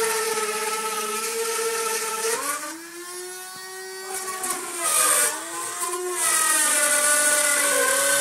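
Corded electric drill boring a hole through a wall, its motor whining steadily. The whine drops in pitch about two and a half seconds in, dips again around five seconds, then rises back up.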